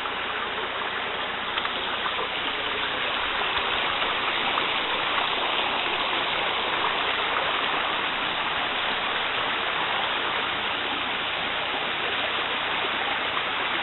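Steady rush of a rocky stream flowing over stones.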